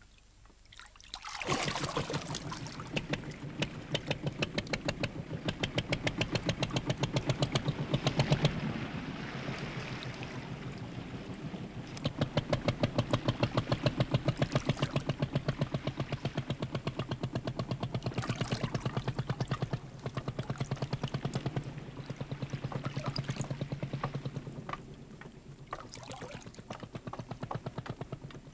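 Small motorboat engine starting about a second in and running with a rapid, even chugging, water splashing along with it. Its loudness rises and falls, easing off near the end.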